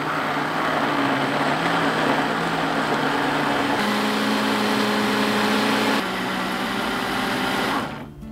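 Countertop electric blender running steadily, whirring through a runny ricotta cheesecake filling to blend it smooth. The motor cuts off near the end.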